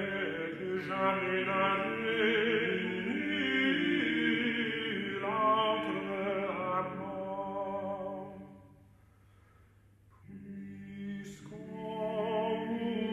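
Several men's voices singing together in harmony, unaccompanied, with long held notes. The singing stops about eight and a half seconds in and starts again about a second and a half later.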